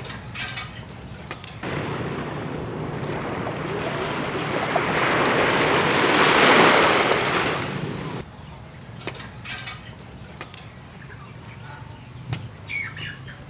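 Rush of waves on a shore, the surf noise building to a peak and then cutting off abruptly, followed by quieter open-air background with a few faint clicks and chirps.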